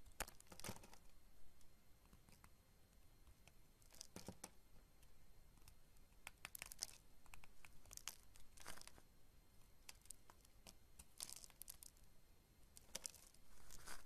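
Utility-knife blade cutting into a bar of soap: faint, short crisp crackles and scrapes as slices and small chunks break off, about seven strokes a second or more apart.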